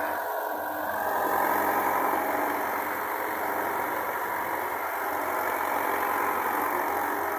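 Diesel engine of heavy farm machinery running steadily, a little louder from about a second in.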